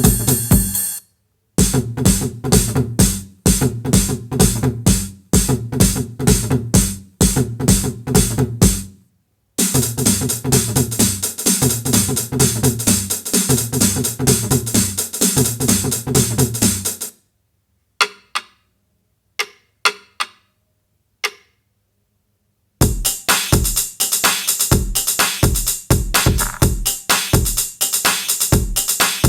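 Electronic dance music: a hard, driving drum-machine beat with synthesizer. It cuts out briefly twice, then thins to a few scattered hits and a short silence midway before the full beat comes back.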